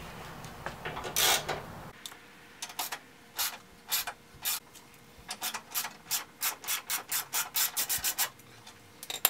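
Hand ratchet on an extension turning a bolt on the core support: a run of short, raspy clicking strokes that quicken toward the end, as a headlight-bracket bolt is backed out.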